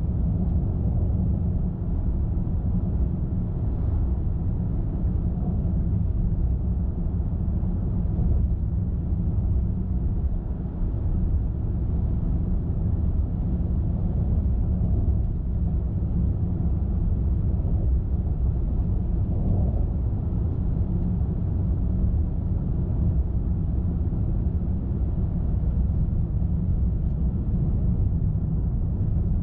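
Steady low road rumble of a car driving at speed: tyre and engine noise at an even level.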